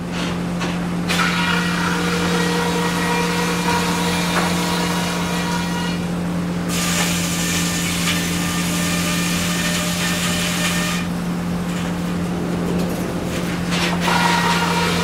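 Sawmill machinery running steadily: a constant low engine or motor hum with higher-pitched cutting noise on top that shifts several times, changing about a second in, about seven seconds in, near eleven seconds and again near the end.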